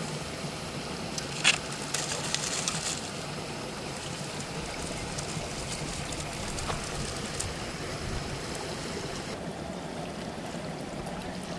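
Steady outdoor background noise, an even rushing hiss with no clear source. A sharp click comes about one and a half seconds in, then a short spell of small clicks and rustling. The high hiss thins out about nine seconds in.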